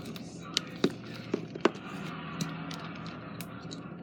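Slime being squeezed and poked by hand, giving a few sharp little clicks and pops, the loudest about a second and a half in.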